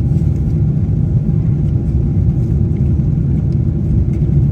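Steady low drone of a Boeing 747-8 airliner heard from inside the passenger cabin in flight: engine and airflow noise with no change in pitch.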